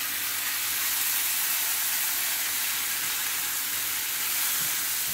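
Chopped onions frying in hot oil in a pan, hissing and sizzling steadily just after a couple of tablespoons of water are poured in.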